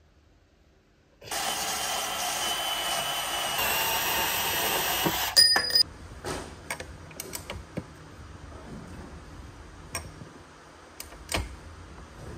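A tool or machine runs with a loud, hissing whir for about four and a half seconds and stops with a couple of sharp clicks. Scattered clicks and knocks of handling follow.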